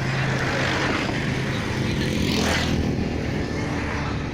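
Road traffic noise, a steady rumble of passing vehicles, with one vehicle passing close and swelling briefly about halfway through.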